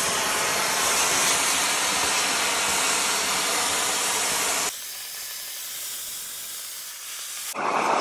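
Victor oxy-acetylene torch flame hissing steadily as it heats steel pipe on a beveling machine, the preheat pass that burns the paint off the pipe. The hiss turns quieter and thinner about five seconds in, then fuller again near the end.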